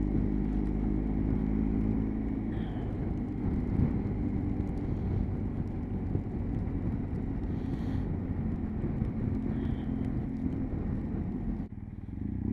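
Motorcycle engine running under way with wind and road noise, heard from a camera mounted on the bike; the engine note rises and falls with the revs. Near the end the sound drops out abruptly and comes back.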